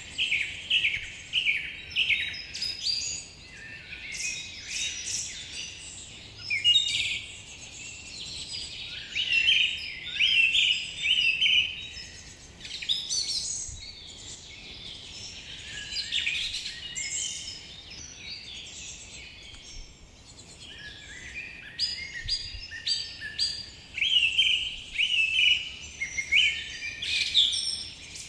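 Many birds singing at once, a dense chorus of overlapping chirps and whistles that comes in waves, thinning out in the middle and picking up again after.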